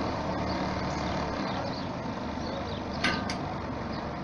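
Diesel engine of a Hudswell Clarke 20-inch-gauge steam-outline diesel-hydraulic locomotive running steadily with a low rumble as the loco moves off slowly. About three seconds in come two brief high-pitched squeaks.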